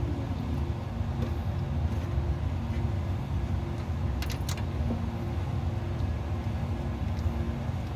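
Forklift's spark-ignition engine running steadily at idle, a low even hum. A few light clicks come about four seconds in.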